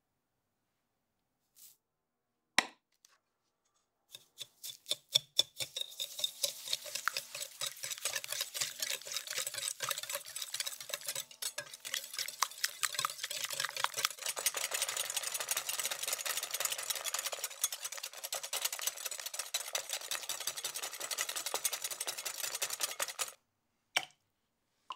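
Wire whisk beating an egg mixture in a glass bowl: rapid clicking and scraping of the wires against the glass, starting with a few slow strokes, quickly speeding up to a fast steady beat and stopping suddenly near the end. Two light clicks come before it.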